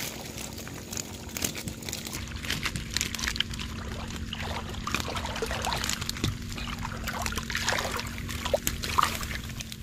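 Water streaming and dripping out of a mesh fish trap packed with catfish as it is lifted from shallow water, with irregular small splashes.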